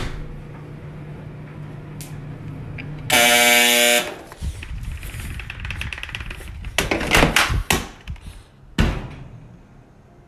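Top-loading washing machine's end-of-cycle buzzer sounding once, a harsh buzz of about a second, about three seconds in, after a low steady hum. A run of clicks and knocks follows, with a few louder thumps.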